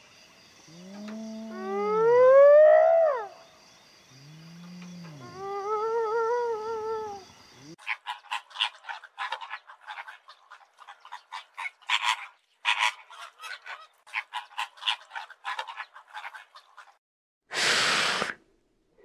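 Animal calls. First come a few drawn-out pitched calls, one rising and one wavering. After about eight seconds a quick run of chattering chirps follows for several seconds, and a short loud hiss comes near the end.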